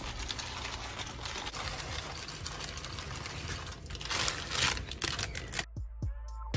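Dry elbow macaroni poured from its plastic bag into a pan of boiling water: a steady bubbling hiss with the pasta rattling and the bag crinkling. Near the end it cuts suddenly to music with a steady beat.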